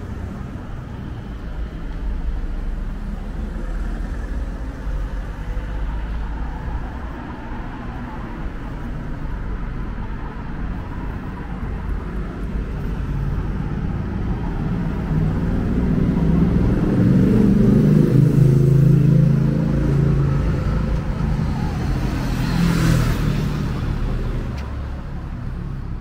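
Road traffic on a town street: a steady low rumble, then a vehicle's engine growing louder as it drives past at about two-thirds of the way in, followed by a brief tyre hiss of another vehicle passing.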